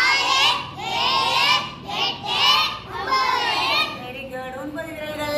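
Young children singing or chanting a rhythmic classroom song together in unison. About four seconds in it drops to a quieter single held note.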